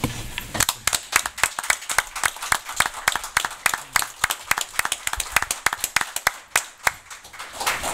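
Applause from a small group: individual hand claps, easy to pick out, starting about half a second in and dying away near the end.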